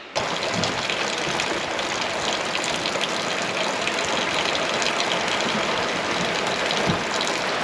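Heavy rain falling steadily on a boat's roof and deck, with rainwater pouring from the roof drains onto the mud below.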